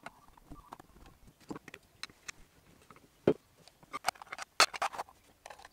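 Irregular clicks and knocks of a small power inverter's plastic end panel, screws and aluminium case being handled and fitted together during reassembly, with two sharper knocks, one just past the middle and one later.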